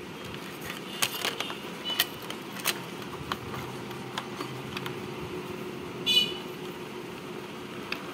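Scattered plastic clicks and taps from handling the opened casing of a bar speaker while its inside parts are worked loose, with a short squeak about six seconds in, over a faint steady hum.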